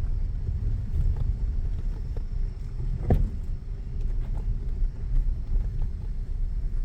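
Vehicle driving over a rough off-road track: a steady low rumble, with one sharp knock about three seconds in.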